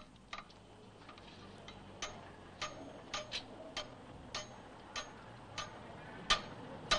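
A hammer tapping repeatedly on the metal of a car's wheel, sharp ringing clinks about two a second, starting about two seconds in.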